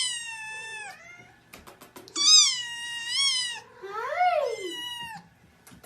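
A kitten meowing repeatedly in high-pitched calls, about four times. One call is long and wavering and the others are shorter, rising then falling. A few faint clicks come between the first calls.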